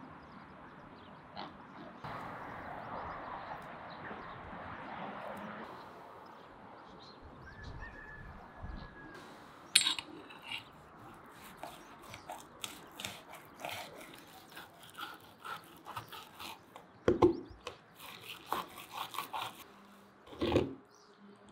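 Faint poultry-yard sounds for the first few seconds. From about halfway, a knife and kitchen shears work a pike fillet on a wooden cutting board, making many sharp clicks, taps and snips.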